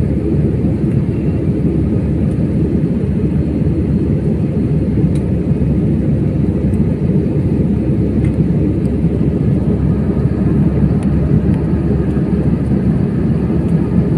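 Steady roar of engine and airflow noise heard inside an airliner cabin, an even low rumble that holds the same level throughout.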